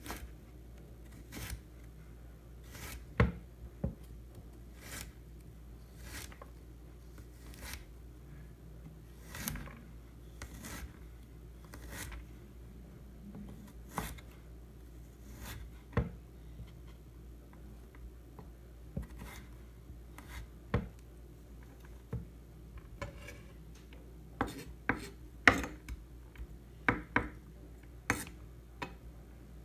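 Kitchen knife cutting carrot sticks into small dice on a wooden cutting board: single sharp knocks as the blade goes through and strikes the board, spaced a second or two apart, coming closer together near the end.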